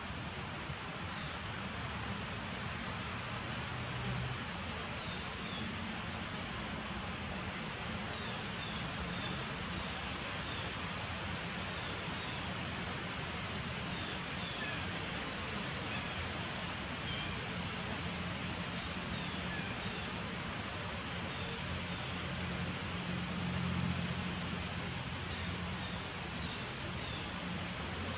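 Honeybees buzzing at a nuc hive entrance: a steady low hum that swells now and then as bees fly close. A steady high thin tone runs behind it.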